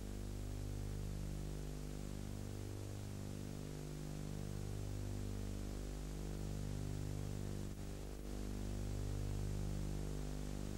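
Steady electrical hum with its overtones under an even hiss, the hum swelling slightly every couple of seconds.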